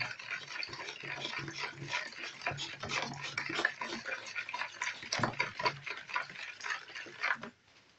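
A spoon stirring salt into pickling liquid in a plastic bowl, with quick, irregular clicks and scrapes against the bowl. The stirring stops near the end.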